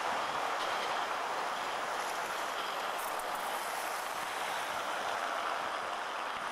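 Steady rushing street noise as an articulated tram pulls away along its rails.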